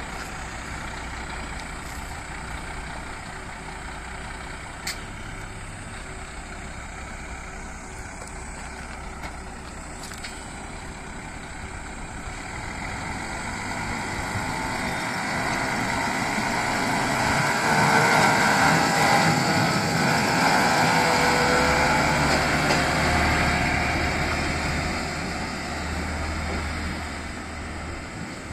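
Diesel railcar running, its engine hum steady at first, then growing louder with a broad rush and fading again near the end.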